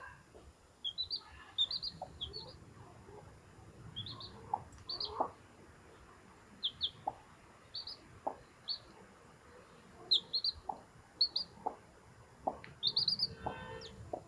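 Newly hatched chicks peeping: short high chirps in little groups of two to four, with a quick run of them near the end. Quieter short low ticks sound in between.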